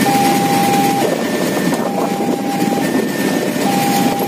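Railway level-crossing warning alarm in PT KAI's standard tone, a low note of about a second alternating with a fainter higher note in an even, repeating pattern. Under it, the engines of motorcycles and cars queued at the closed crossing run at idle.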